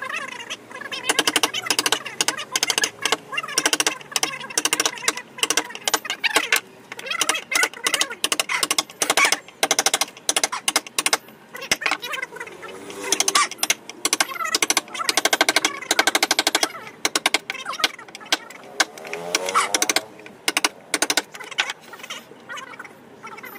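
Hammer striking a wood chisel, driving it into a teak panel: quick runs of sharp taps with short pauses between them.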